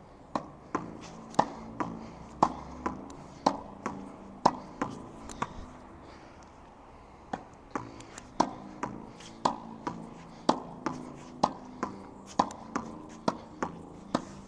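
Tennis ball being volleyed against a wall: a steady rally of sharp pops, racket strike and wall strike about half a second apart, repeating roughly once a second. A break of about a second and a half comes in the middle before the rally picks up again.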